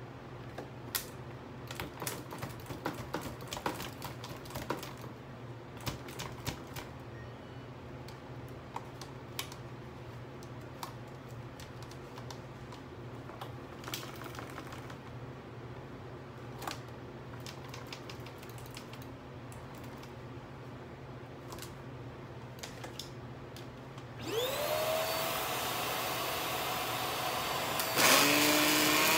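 Scattered clicks and knocks of a vacuum cleaner being handled. About 24 seconds in, its motor switches on and spins up with a rising whine, then runs steadily. It gets clearly louder near the end as it is pushed over the carpet.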